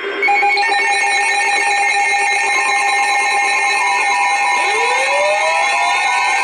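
Emergency Alert System alert tones: several steady electronic tones sounding together at an even level, with a tone gliding upward about four and a half seconds in.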